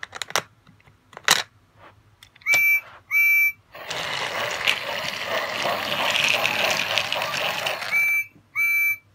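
Battery-powered talking Percy toy train starting up: a few clicks, two short electronic whistle toots from its speaker, then a steady hiss for about four seconds as it runs, and two more toots near the end.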